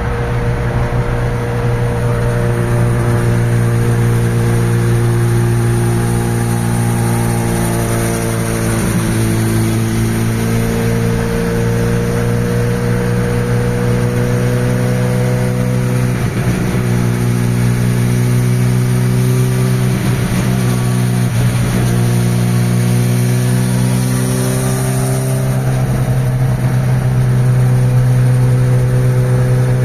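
Honda CBR1100XX Super Blackbird motorcycle's inline-four engine running steadily, its pitch drifting gently up and down.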